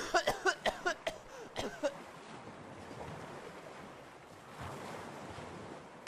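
Ocean waves and wind as a cartoon sound bed, steady after a quick run of short pitched blips in the first two seconds.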